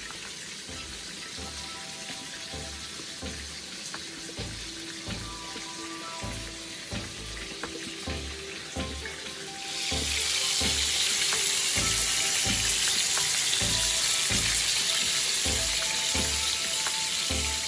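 Background music with a steady beat. About ten seconds in, loud sizzling of chicken pieces frying in a pan of hot oil comes in and carries on over the music.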